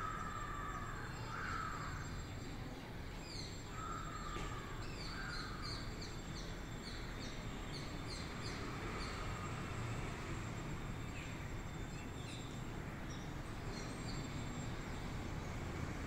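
A crow cawing several times, hoarse calls spread over the first six seconds, while a small bird chirps quickly and high-pitched for a few seconds, over a steady low rumble of background noise.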